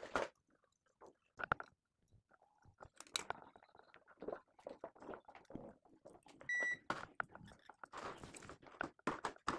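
Small clicks and rustles of copper wires being twisted and soldered with a pencil soldering iron, in irregular clusters. A short electronic beep sounds about six and a half seconds in.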